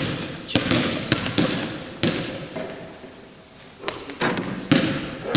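Basketballs bouncing on a sports-hall floor: sharp thuds about every half second, each trailed by the echo of the large hall, with a lull of about two seconds midway.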